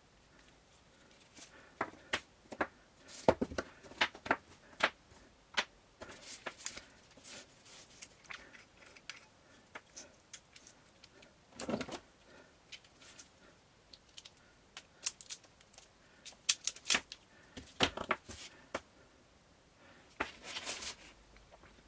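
Hand work on the enlarger's electrical wiring and small parts: irregular clicks and taps, with a couple of short scraping rustles, one about halfway through and one near the end.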